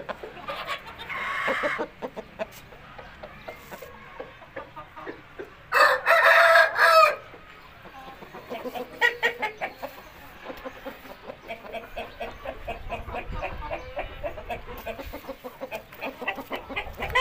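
A rooster crows once, loudly, about six seconds in, with a shorter call about a second in and many short clucks from chickens through the second half.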